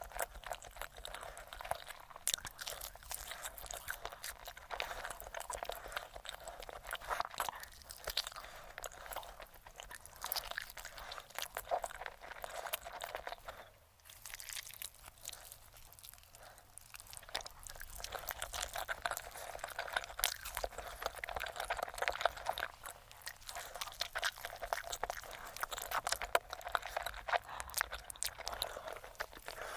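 Close-miked chewing and crunching of roasted chicken in irregular, rapid crackles, with a quieter stretch about halfway through.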